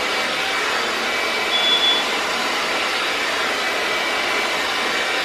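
Handheld hair dryer with a comb nozzle blowing steadily while drying a braid of hair, with a brief high whistle about a second and a half in.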